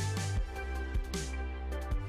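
Electronic background music with a deep bass, held chords and a steady beat.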